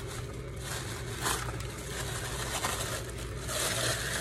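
Tissue paper rustling and crinkling as it is unfolded and pulled open by hand, with a couple of sharper crackles.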